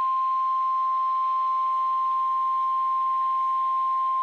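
National Weather Service warning alarm tone on an Emergency Alert System broadcast: a single steady high tone of about 1050 Hz, held unbroken at a constant level, signalling that a weather warning message is about to follow.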